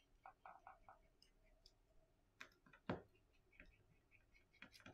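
Faint clicks and taps of small repair tools working inside an opened Samsung Galaxy A70. In the first second there is a short run of about four quick, evenly spaced scraping strokes, and about three seconds in there is one sharper click.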